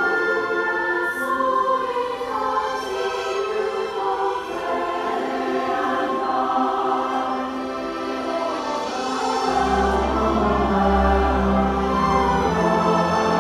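A large choir singing with orchestral accompaniment, heard live from within the audience. About ten seconds in, deep bass notes come in beneath the voices and the music grows a little louder.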